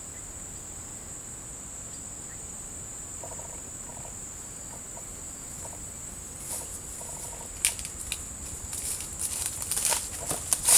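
Faint clucking of chickens over a steady high-pitched insect drone. From about two-thirds of the way in, dry palm leaves and undergrowth crackle and rustle as they are handled, with sharp snaps near the end.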